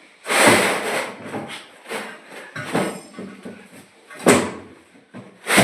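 Knocks and scraping from a wall-hung toilet being handled and fitted: a long scrape about half a second in, then several sharp knocks, the loudest two near the end.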